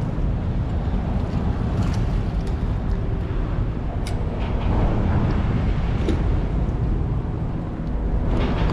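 Steady low rumbling noise, with a few faint clicks about two, four and six seconds in.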